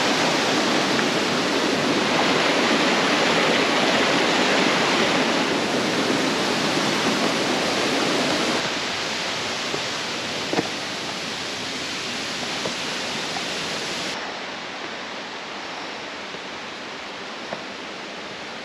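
Rushing water of a waterfall, a steady noise without any tune or rhythm. It drops in level in two steps, about 8 seconds in and again about 14 seconds in, and a faint click or two sounds over it.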